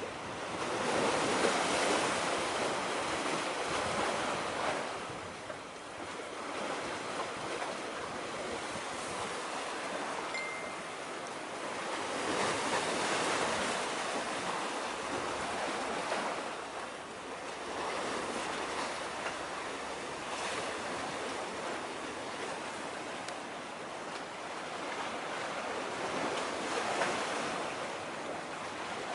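Waves washing against a breakwater, with wind, swelling and easing every few seconds.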